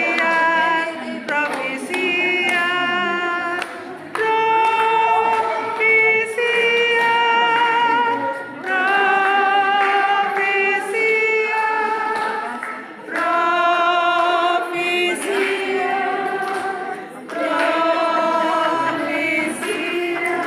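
A choir singing a slow song in long held notes, phrase after phrase with short breaks between.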